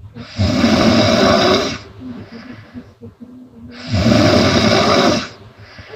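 A woman snoring loudly: two long snores, each lasting over a second, about three and a half seconds apart, with quieter stretches between.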